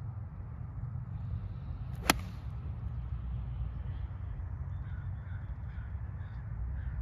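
Golf iron striking a ball: one sharp, loud click of impact about two seconds in, over a steady low rumble.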